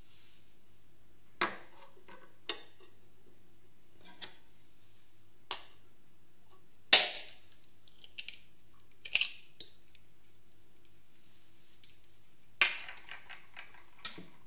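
A kitchen knife tapping and cracking a raw egg's shell over a glass bowl: about ten separate sharp taps and knocks, the loudest about 7, 9 and 12 seconds in, some followed by a brief rattle of shell.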